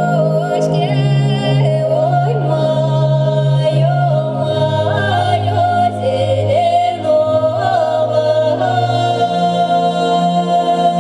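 Ethno-ambient folk song: a singing voice carries a wavering melody over sustained low drone notes, which step to a new pitch about a second in, again near the middle, and once more near the end.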